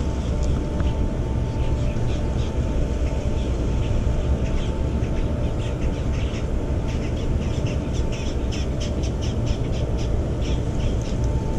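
Light drizzle pattering as scattered small ticks, over a steady low rumble.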